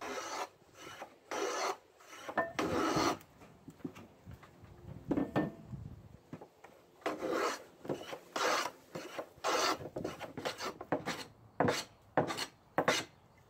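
Hand plane shaving a wooden block down to a marked dovetail angle: about a dozen rasping push strokes, spaced out at first and coming more quickly near the end.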